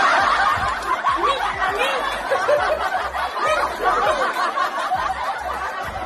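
Two women laughing hard together, their laughter overlapping continuously.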